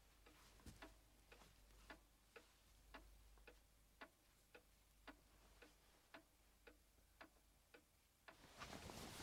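Clock ticking steadily, about two ticks a second, in an otherwise quiet room. Just before the end a louder noise swells in.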